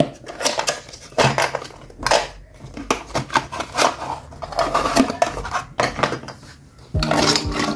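A cardboard toy box being opened by hand and a plastic toy pulled out of it: irregular rustling, scraping and light plastic knocks and clacks. About seven seconds in, music with steady chime-like tones starts.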